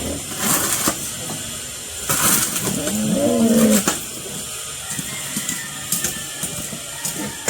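A shovel scraping as manure is shoveled out of a pig pen, a few rasping strokes, with a native pig grunting for just under a second about three seconds in.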